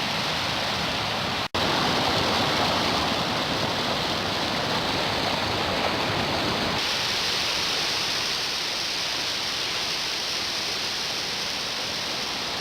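Waterfall and creek water rushing steadily. The sound cuts out for an instant about a second and a half in, and turns brighter and hissier about seven seconds in.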